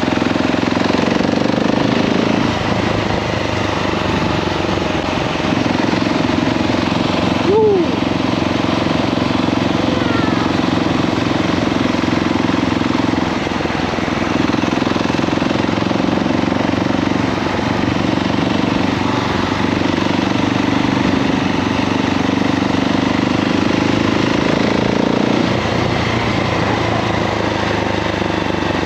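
KTM 690 SMC-R supermoto's single-cylinder engine running under way, its pitch and loudness shifting every few seconds as the throttle opens and closes, with wind rushing over the microphone. A brief sharp sound about seven and a half seconds in.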